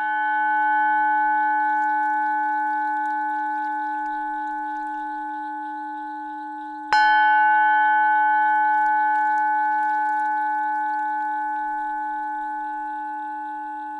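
Tibetan singing bowl tuned to 852 Hz, ringing after a strike and slowly dying away. It is struck again about halfway through and rings on with the same tones.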